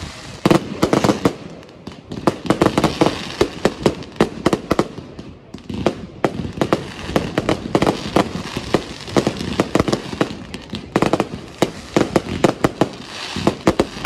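Aerial fireworks bursting overhead: rapid volleys of sharp bangs and pops, with crackling stars in between. The bangs come in dense clusters with brief lulls of a second or so, and a spell of fizzing crackle near the end.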